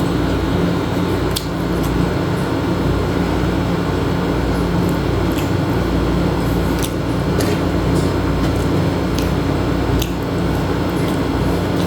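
A steady mechanical drone with a low hum holds throughout, with a few faint sharp clicks scattered over it.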